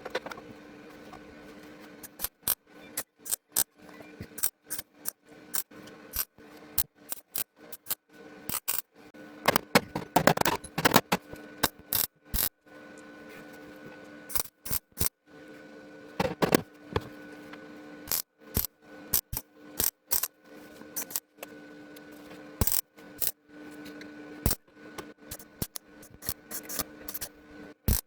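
Hand work on car-body sheet metal: many sharp metallic clicks and snaps over a faint steady hum, with a denser cluster about ten seconds in. The sound breaks off abruptly again and again.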